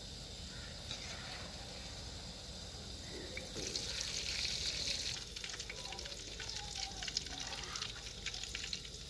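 Gulab jamun deep-frying in hot ghee: a sizzle of many small crackles and pops that sets in about halfway through, after a fainter hiss.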